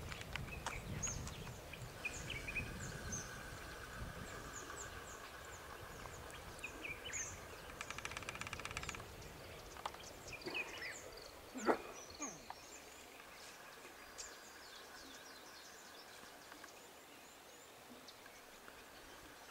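Faint outdoor ambience of assorted wild birds chirping and calling, with short high calls scattered throughout and one louder sweeping call about twelve seconds in. A low rumble sits under the first few seconds.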